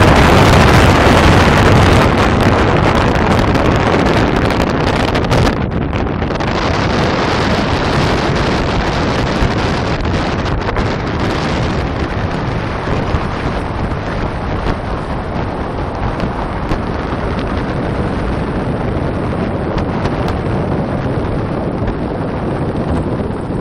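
Wind buffeting the microphone on the open deck of a ship under way: a loud, steady rush, heaviest in the first few seconds.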